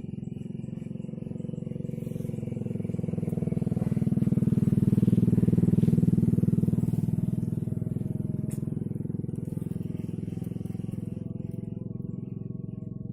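A small engine running steadily with a fast, even buzz. It grows louder to a peak about five seconds in, then fades away again, like a vehicle passing by.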